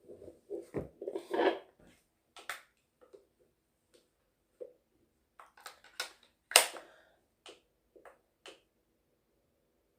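Irregular clicks and scratchy crackles from a handheld fetal doppler as its probe is moved over gel on a pregnant belly, with a dense cluster in the first two seconds and one sharp, loud click about six and a half seconds in.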